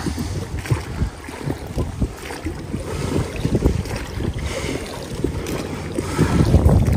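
A boat on a river: water slapping and knocking irregularly against the hull, with wind rumbling on the microphone, louder near the end.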